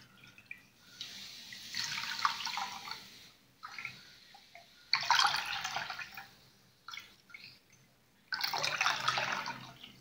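Water being poured from a bottle into a steel bowl and from the bowl into a glass dish of rice, in three main pours a few seconds apart, each lasting about a second.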